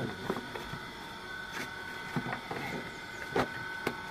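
Large plastic water jar being handled and capped with its screw lid: a few sharp plastic clicks and knocks, the loudest about three and a half seconds in. A faint steady high hum runs underneath.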